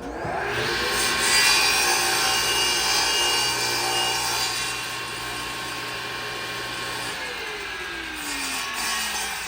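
Electric power saw spinning up and cutting a wooden board, its motor pitch rising in the first second, then winding down over the last couple of seconds.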